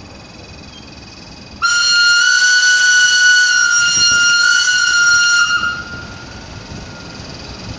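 SBB electric locomotive's horn sounding one long steady blast of about four seconds, cutting in suddenly and dipping slightly in pitch as it tails off.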